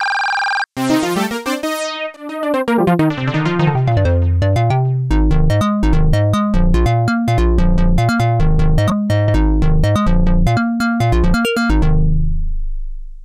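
Roland Jupiter-X synthesizer playing a Jupiter-8-style patch: a short held sound, then a note sweeping up and back down in pitch, then a fast repeating run of notes with a heavy bass that fades out near the end.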